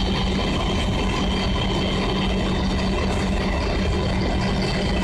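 A pair of SNCF BB 67400 diesel locomotives running in multiple: a steady diesel engine drone with a constant low hum and a thin high whine above it.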